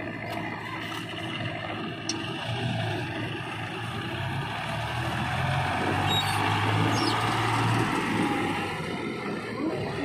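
John Deere tractor's diesel engine running under load as it pulls a trailer heaped with soil. It grows louder through the middle and eases off near the end.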